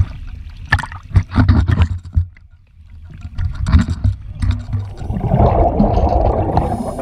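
Sea water sloshing and splashing around a camera held at the waterline, with low rumbling buffets, then a dense muffled rushing and bubbling from about two-thirds of the way in as the camera goes under among descending scuba divers.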